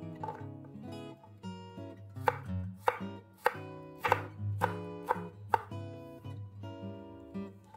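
Chef's knife slicing garlic cloves on a wooden cutting board: about seven sharp knife strikes, roughly two a second, starting about two seconds in, over soft background music.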